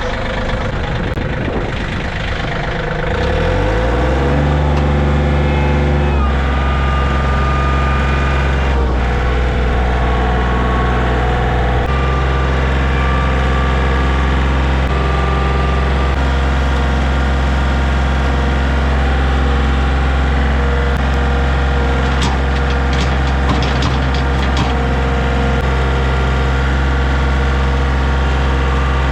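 Tractor's diesel engine revving up about three seconds in, then running steadily at high revs.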